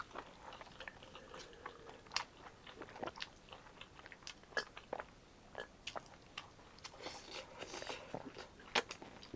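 Close-up eating sounds: a person chewing a mouthful, with irregular small clicks and smacks of the mouth.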